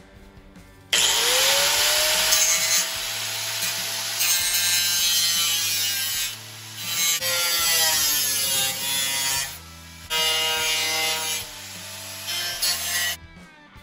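Electric angle grinder spinning up with a rising whine about a second in, then grinding into the rusted sheet steel of a car's rear tail panel. Its pitch sags and wavers under load, and it pauses briefly twice before stopping near the end.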